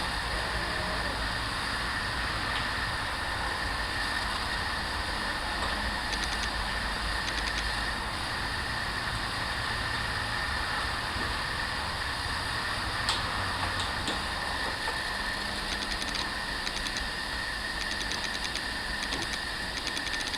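Steady machine noise with a constant high whine and a few faint clicks.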